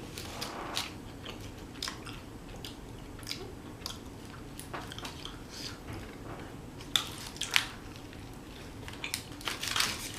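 A person chewing food close to the microphone, with crisp crunching bites and wet mouth clicks; the loudest crunches come about seven seconds in and again near the end.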